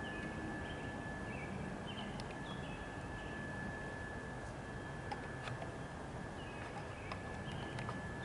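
Faint bird chirps scattered over a steady outdoor hiss, with a thin steady whine and a few soft clicks.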